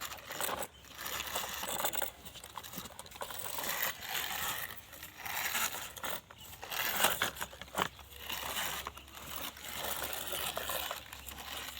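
Irregular crinkling and rustling noises in short bursts, with brief gaps between them.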